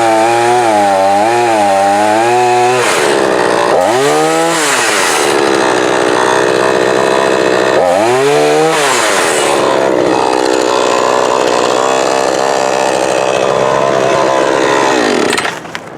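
Chainsaw cutting through fallen tree limbs, its engine pitch wavering under load. It revs up and back down twice, about four and eight seconds in, and drops off shortly before the end.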